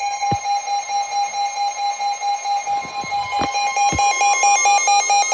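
Weather alert radio receivers sounding their warning alarms together: several high beeping tones layered at once. The strongest tone is steady at first and starts pulsing rapidly about three and a half seconds in. A few dull knocks are heard along with the tones.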